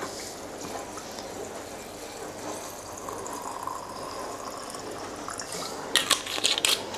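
Alcohol poured from a bottle into a glass jar packed with roots for a tincture: a steady pour. A few sharp clicks come near the end.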